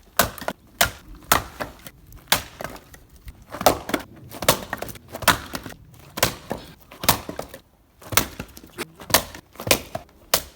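Firewood being split in quick repeated strikes: sharp wooden cracks about two a second, with a few short pauses.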